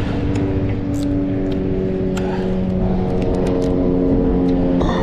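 Motor traffic on the bridge: the steady hum of vehicle engines passing, slowly shifting in pitch, with a few light clicks scattered through it.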